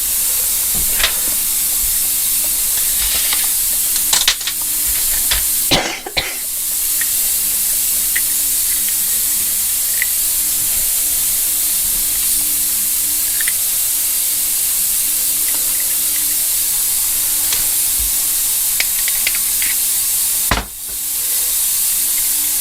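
A steady loud hiss, dipping briefly about six seconds in and again near the end, with scattered small clicks of carburettor parts being handled.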